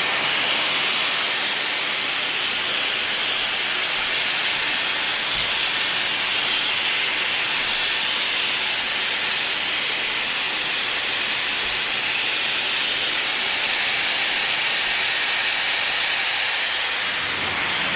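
Dyson Airwrap hair styler blowing air through its curling barrel: a steady, airy hiss that does not change.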